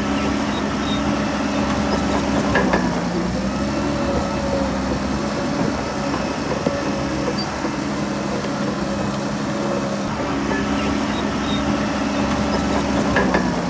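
Heavy diesel engine of an earthmoving machine running steadily. Its pitch sags briefly twice, about three seconds in and near the end, each time with a sharp knock.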